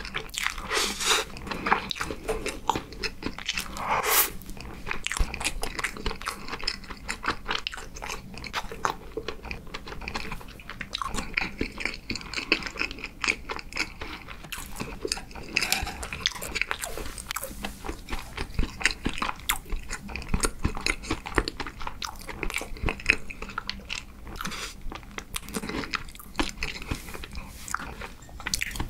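Close-miked chewing of a mouthful of whipped-cream sponge cake: steady, irregular wet mouth smacks and small clicks.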